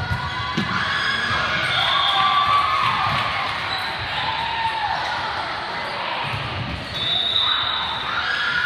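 Volleyball play on a hardwood gym court: the ball is struck near the start, and sneakers squeak on the floor, with players' and spectators' voices calling out.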